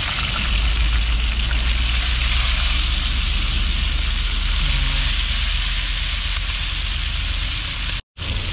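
Strong wind buffeting the microphone, a heavy low rumble, over the steady sizzle of milkfish frying in oil. The sound cuts out for an instant near the end.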